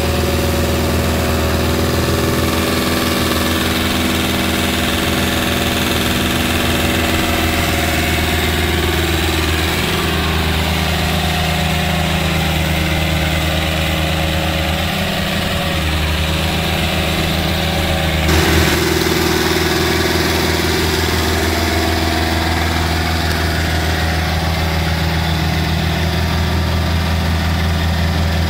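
Diesel farm tractor engine running steadily under load while pulling a tillage implement through wet paddy mud. The engine note shifts abruptly about two-thirds of the way through.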